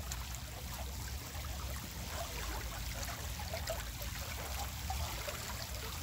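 Seawater flowing in through an open sluice gate into an earthen crab pond: a steady churning, bubbling flow.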